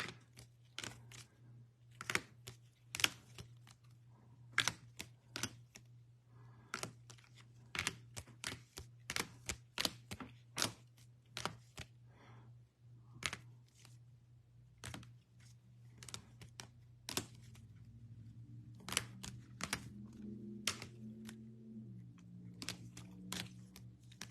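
Trading cards being handled and sorted on a table: irregular sharp clicks and taps of cards over a steady low hum.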